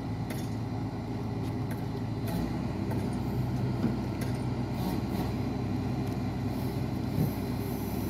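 Barge-mounted Kobelco excavator pile-driving rig running with a steady low mechanical hum and no separate hammer blows. The deepest part of the hum grows stronger about two and a half seconds in.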